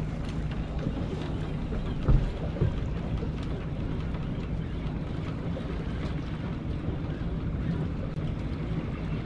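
Boat motor running steadily with a low hum, with wind buffeting the microphone; two short knocks a little after two seconds in, the first the loudest.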